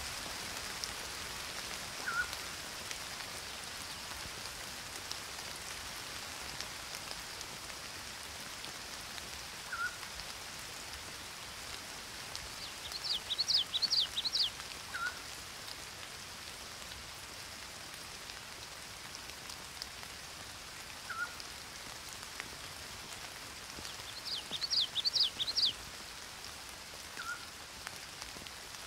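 Steady rain falling on garden foliage, with a bird giving a single short call every five or six seconds. Twice, about halfway through and again near the end, a bird sings a brief burst of rapid high notes, the loudest sounds here.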